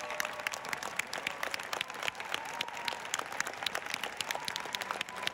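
Crowd of graduates applauding, many hands clapping, with individual sharp claps close to the microphone standing out.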